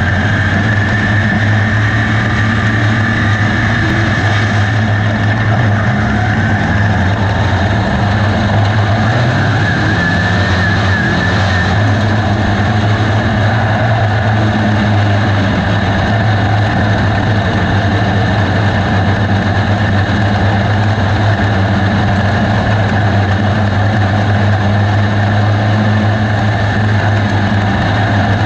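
USRA B-Mod dirt-track race car's V8 engine running at a steady, fairly even speed, heard from inside the cockpit.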